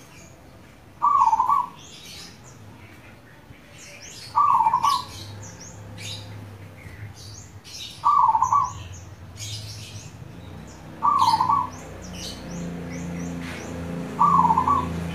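Zebra dove (perkutut) singing its cooing manggung song: five short cooing phrases, about one every three seconds. Other small birds chirp faintly in between, and a low hum builds in the second half.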